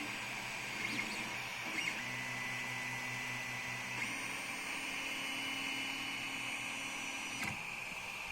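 3D printer printing: its stepper motors whine in steady tones that change pitch abruptly a few times, over a steady hiss.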